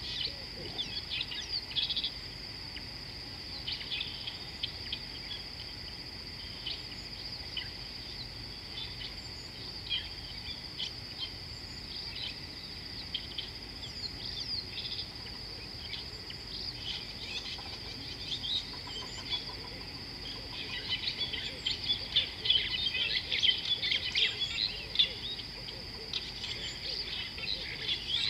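Many wild birds chirping and calling in short, overlapping notes over a steady high-pitched drone. The calls grow busier and louder about two-thirds of the way through.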